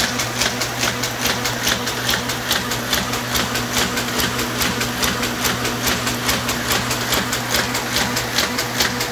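Hamada 600 offset printing press running, its gears and cams clattering in a fast, even rhythm over a steady motor hum.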